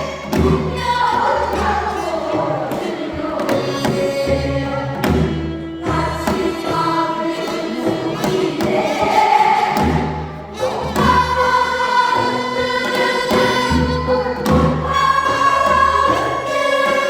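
Korean traditional-style singing with accompaniment: long, wavering sung notes over a steady low drum beat.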